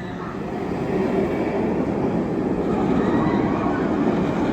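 B&M floorless roller coaster train running along its steel track, a steady rumble that grows louder about a second in.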